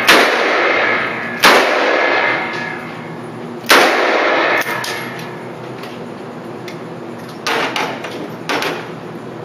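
Handgun shots echoing in an indoor range: three loud shots, at the start, about a second and a half in and near four seconds in, each with a long ring of echo. Fainter bangs follow about halfway through and twice near the end.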